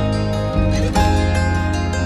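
Background music: plucked notes over sustained low tones, with a new note or chord about every half second.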